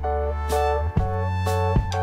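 Instrumental background music with sustained bass notes, a melody changing every half second or so, and a steady beat.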